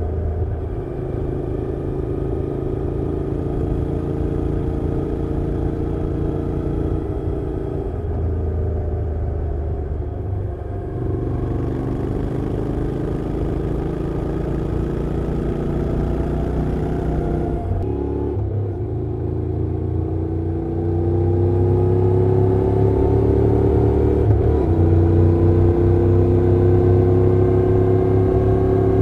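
2024 Honda NC750X's 745 cc parallel-twin engine and exhaust running under way at a steady cruise. Around two-thirds of the way through it eases off briefly, then pulls harder: the pitch climbs slowly, drops once and climbs again, and the sound grows louder toward the end.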